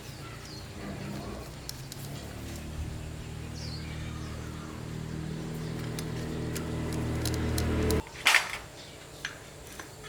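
A motor running with a steady low hum that slowly grows louder, then cuts off abruptly about eight seconds in, followed at once by a sharp knock.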